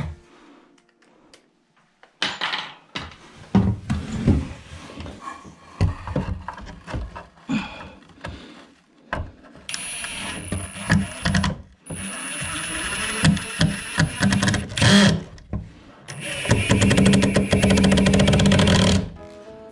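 Building work: a series of knocks and bangs, then a power tool running in several bursts, the longest about two and a half seconds near the end, cutting off sharply.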